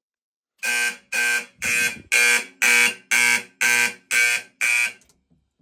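Fire alarm horn on a homemade relay-driven fire alarm system, sounding nine loud, even pulses at about two a second, the march-time alarm pattern, then stopping.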